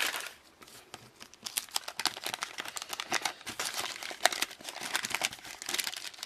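Wax-paper wrapper of a 1988 Topps football card pack being opened, crinkling and tearing in a dense, irregular run of small crackles.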